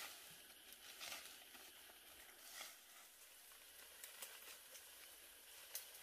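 Near silence with a few faint, scattered clicks and rustles; the sharpest is a short click near the end.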